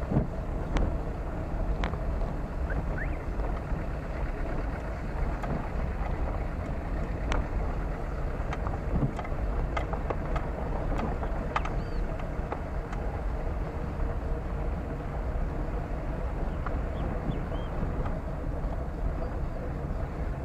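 Car driving: a steady low rumble of engine, tyres and wind, with scattered light knocks and rattles.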